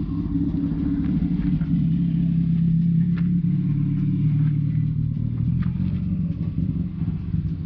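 Steady low mechanical rumble, like a motor running close by. It cuts off suddenly at the end.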